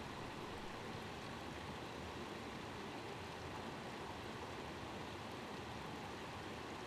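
Low, steady rushing of water, an even hiss with no separate splashes or drops standing out.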